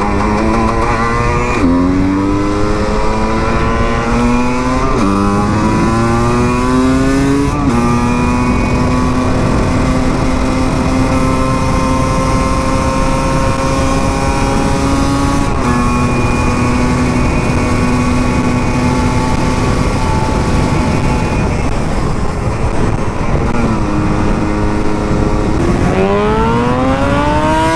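Husqvarna SM 125 two-stroke single-cylinder engine accelerating up through the gears, its pitch climbing and dropping back at three shifts in the first eight seconds. It then holds a steady pitch at cruising speed, eases off about three-quarters of the way in, and revs up hard again near the end.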